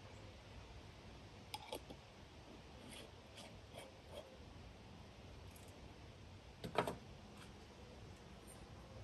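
Soft clicks and taps of a small glass oil bottle and its cap being handled, then one louder knock about two-thirds of the way through as glass meets a glass tabletop.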